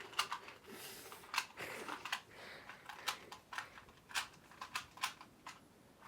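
Plastic faces of a 2x2 Rubik's cube being turned fast by hand during a speed-solve: an irregular series of short sharp clicks and clacks, a few each second.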